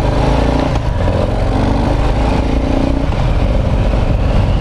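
Harley-Davidson Low Rider S's Milwaukee-Eight 114 V-twin running steadily under way, heard on board the moving motorcycle.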